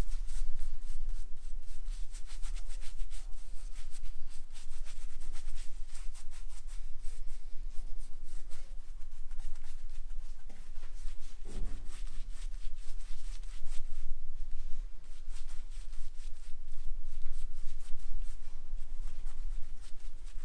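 Shaving brush lathering a bald scalp with shaving cream: a steady bristly rubbing with quick fine crackles of the lather. A single soft low thump about halfway through.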